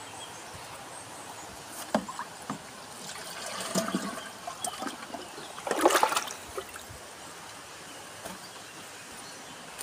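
Water sloshing and trickling in a watering can, with a louder splash about six seconds in.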